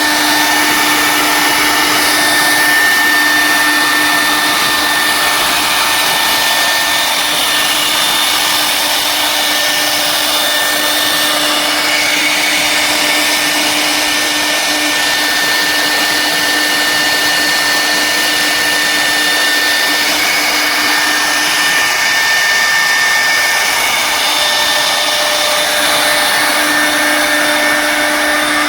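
Air-cooled spindles of a double-head wood CNC router running: a loud, steady whirring with a constant whine held over it.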